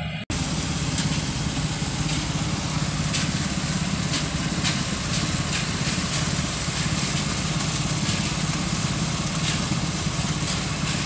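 Concrete mixer truck's diesel engine running steadily, with a constant low hum, as the truck turns its drum to discharge concrete for a slab pour.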